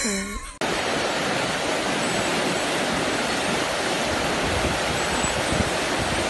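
Rushing river water over rocks: a steady, even rush that starts abruptly about half a second in.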